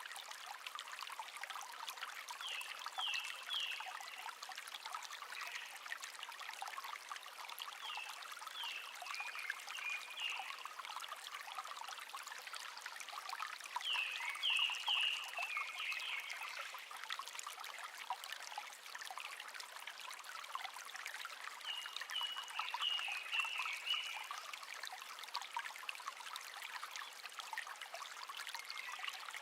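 Shallow stream babbling and trickling steadily. A songbird sings four short phrases of quick descending notes, spaced several seconds apart.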